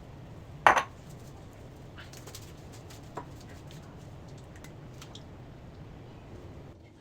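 Kitchenware clattering: one loud clink of dishes or utensils a little under a second in, then a few lighter clicks and taps, over a steady low hum that stops near the end.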